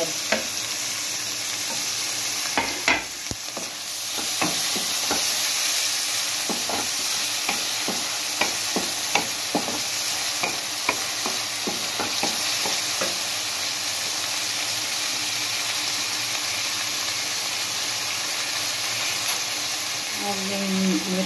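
Onions and chopped tomatoes sizzling in oil in a metal karahi, stirred with a wooden spatula that scrapes and knocks against the pan again and again.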